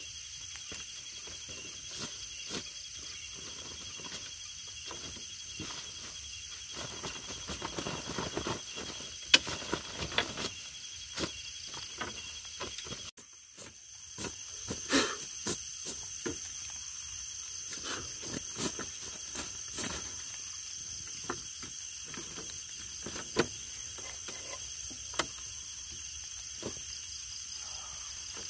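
Steady chorus of insects singing in several high, even bands, with scattered sharp clicks and knocks throughout. The loudest click comes about nine seconds in, and the sound dips briefly about halfway through.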